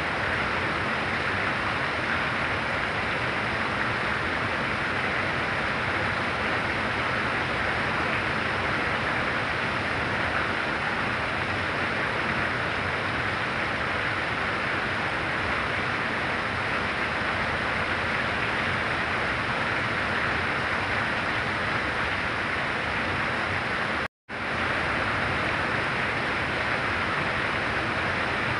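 Heavy rain falling, a steady dense hiss. It cuts out completely for a split second near the end, then comes straight back.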